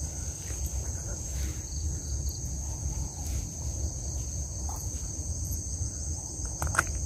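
Steady high-pitched chorus of insects, with low wind rumble on the microphone; a few short clicks near the end.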